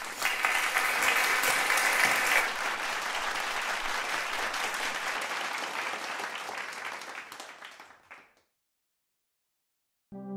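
Audience applauding, loudest in the first couple of seconds, then fading away to silence about eight seconds in.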